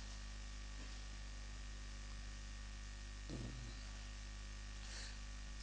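Steady electrical mains hum with a buzz of overtones, and a faint brief low sound about three and a half seconds in.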